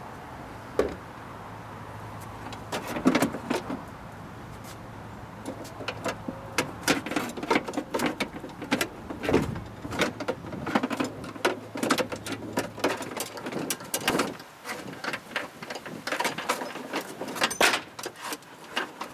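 Metal parts of a car door's window regulator clicking, knocking and rattling as they are handled and worked loose inside the door, a few knocks at first and then a busy clatter. A faint steady low hum runs under it and stops about fourteen seconds in.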